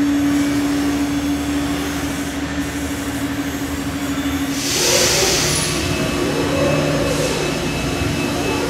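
5-axis gantry CNC machining center's router spindle running with a steady whine as it cuts foam tooling board. About halfway through, the whine drops away, a brief burst of hiss sounds, and the cutting sound changes.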